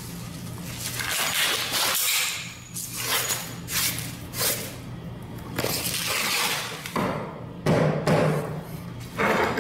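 Hands working ceramic floor tiles loose: a series of short scrapes and knocks of tile and grout, with a stronger knock near the end, over a steady low hum.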